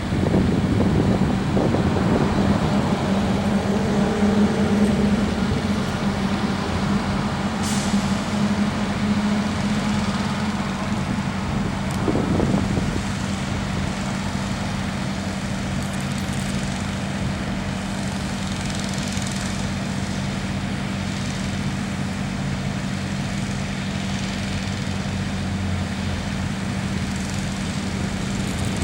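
Heavy diesel truck engines running steadily at a concrete pour, a constant drone over the noise of freeway traffic. A brief hiss about eight seconds in and a low thump about four seconds later.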